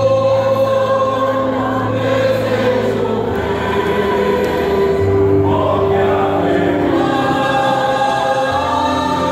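Mixed choir of men and women singing in harmony, holding long chords that change every second or few.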